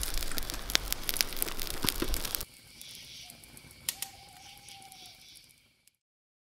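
Campfire crackling with frequent sharp pops. About two and a half seconds in it cuts abruptly to a much quieter high hiss with one faint drawn-out tone, which fades to silence near the end.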